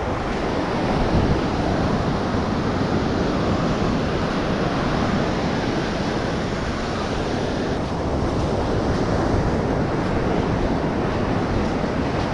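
Ocean surf breaking on a sandy beach, a steady rushing noise, with wind buffeting the microphone.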